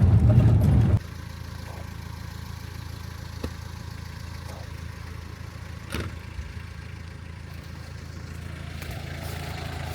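Motor vehicle running while riding in it: a loud low hum that cuts abruptly to a quieter steady hum about a second in, with a couple of light knocks.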